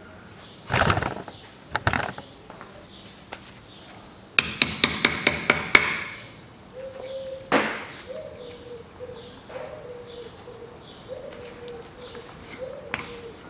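Hand-tool work on a car's front strut: a few single knocks, then a quick run of about seven sharp taps, about five a second, and one more knock a little later.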